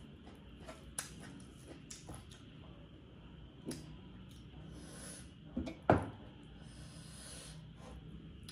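A person eating close to the microphone: chewing and wet mouth sounds, with a few small clicks and one louder knock about six seconds in.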